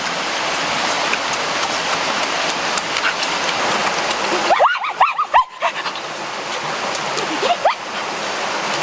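Steady rushing of a forest stream, with a quick run of short high chirping calls about halfway through.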